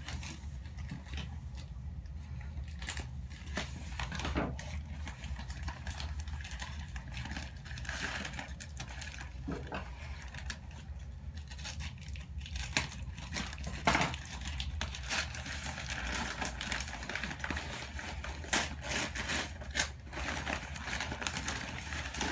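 Paper packing crinkling, rustling and tearing in irregular crackles as a shipped orchid is unwrapped by hand, with a louder crackle about fourteen seconds in.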